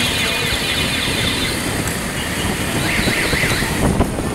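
Steady street traffic noise heard from a vehicle moving along a street. A warbling electronic alarm-like tone, rising and falling about four times a second, dies away in the first second and a half, and a short warble comes back about three seconds in.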